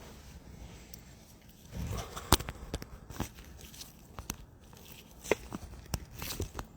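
Handling noise from a camera being repositioned: a string of irregular clicks and knocks with some rustling, the sharpest click about two and a half seconds in.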